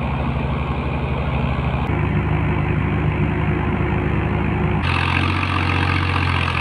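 Diesel tractor engines running hard while pulling a heavily loaded trolley, with an even, steady beat. The engine sound changes abruptly about two seconds in and again near five seconds, where one clip cuts to the next.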